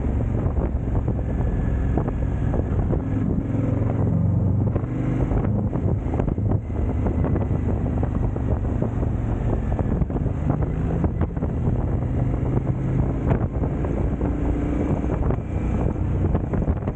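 Twin-cylinder KTM motorcycle engine running on the move, its note shifting up and down a few times with the throttle, with wind noise on the microphone.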